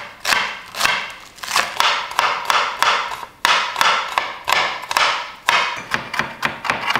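Kitchen knife chopping on a cutting board: quick, even strokes about three to four a second, with a few short pauses.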